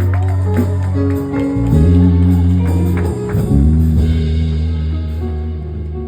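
Live church worship music: held low bass notes changing pitch every second or so, with light percussion strikes over them.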